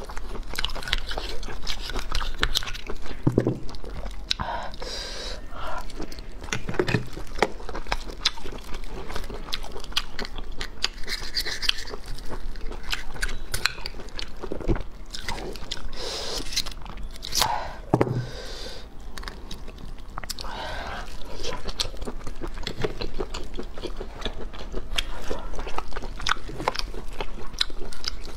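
Close-miked chewing and biting of steamed abalone, with wet mouth sounds and many sharp clicks.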